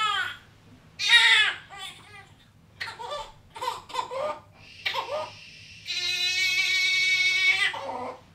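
Newborn baby crying: short wails and fussing sounds, then one long, steady wail near the end.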